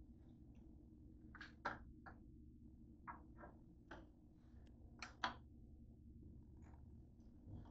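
Faint kitchen handling sounds: a handful of light knocks and clicks, the loudest pair about five seconds in, over a low steady hum.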